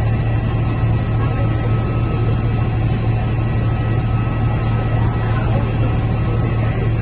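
Twin-engine jet airliner's engines at taxi idle: a steady low rumble with a faint high whine over it.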